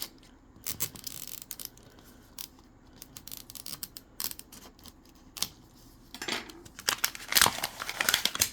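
Small plastic wrappers crinkling and tearing, with light clicks of little plastic pieces, as Mini Brands miniatures are unwrapped by hand. A louder stretch of crinkling comes near the end.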